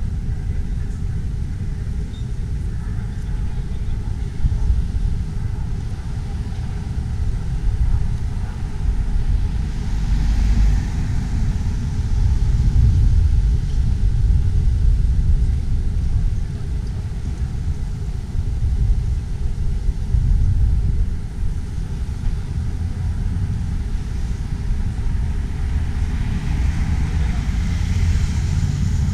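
Street traffic: a steady low rumble of road vehicles, with cars swelling louder as they pass, about ten seconds in and again near the end.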